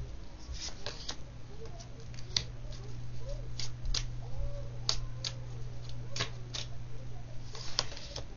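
Oracle cards being handled and laid on a table: a dozen or so sharp, irregular card clicks and snaps over a low steady hum.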